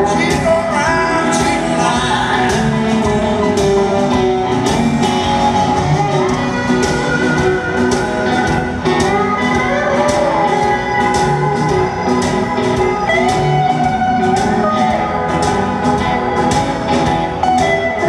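Live blues band in a large arena: a lap steel guitar plays sliding, gliding lines over drums and bass, with a singing-like sustained tone and hall reverberation.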